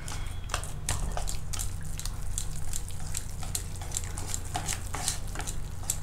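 Wire whisk beating a thick, wet wheat-flour and semolina batter in a stainless steel bowl: quick irregular wet clicks, several a second, over a steady low hum.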